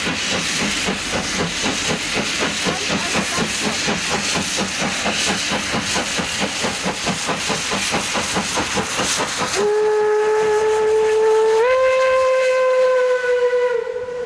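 Steam locomotive working hard on a steep grade, its exhaust beating fast and evenly with hiss of steam. About two thirds of the way in, the locomotive's steam whistle sounds one long blast, which steps up slightly in pitch halfway through and is the loudest sound.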